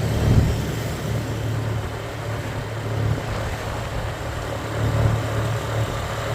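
Motor vehicle running with a steady low rumble that swells briefly about half a second in and again near the end.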